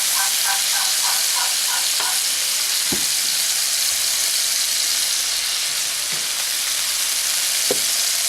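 Marinated duck gizzards and testicles sizzling steadily in a hot frying pan. A few light knocks come about three, six and eight seconds in, and a faint repeated chirping fades out in the first two seconds.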